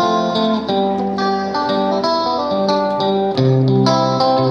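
Background music with a plucked guitar melody.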